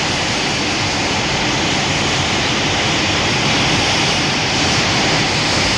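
Steady rushing noise with a low rumble under it, with no roar or pitch in it: a sound effect for the Showa-era monster Baragon. It holds an even level and cuts off abruptly.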